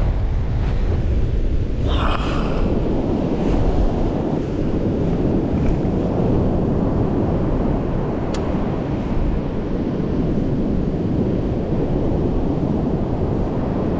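Waves breaking and washing on a sandy surf beach, with wind buffeting the microphone in a steady low rumble.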